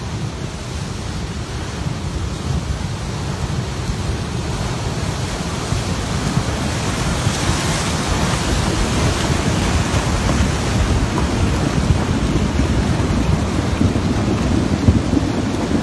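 Flash-flood surge of muddy water carrying a mass of logs and branches down a rocky mountain stream bed: a steady, deep rushing noise that grows louder as the front passes.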